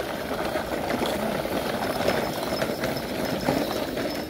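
Plastic toy dump trucks rolling over dirt, a steady gritty rattle of their wheels and loads with scattered small clicks.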